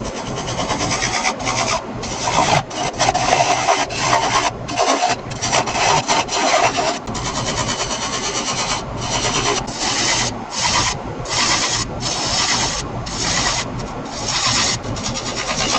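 Turning tool cutting into a laminated wood blank spinning on a wood lathe, in short repeated shaving passes about once a second with brief breaks between them.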